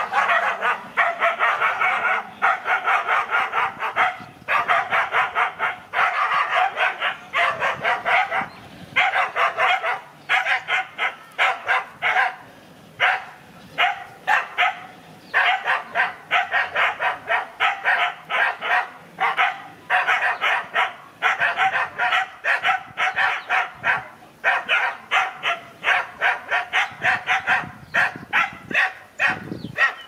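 Dogs barking in rapid, long volleys with short pauses every few seconds; the barking cuts off near the end.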